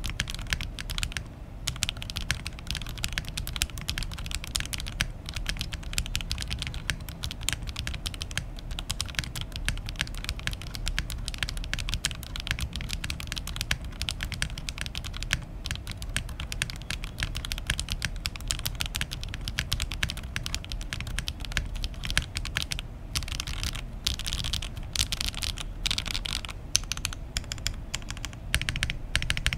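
Typing sound test on an Oasis65 mechanical keyboard fitted with ABS double-shot DAYE keycaps and with its foam put back in: a continuous fast stream of key clacks.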